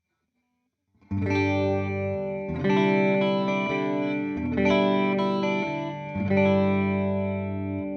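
Electric guitar (Fender Jazzmaster with humbuckers) played through a Boss CE-2 chorus pedal into a simulated Fender '65 Twin Reverb amp: after about a second of quiet, four chords are struck in turn, each left to ring out with the chorus shimmer.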